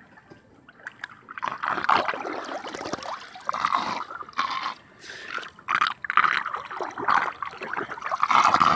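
Floodwater trickling and gurgling, starting about a second and a half in and coming in uneven surges.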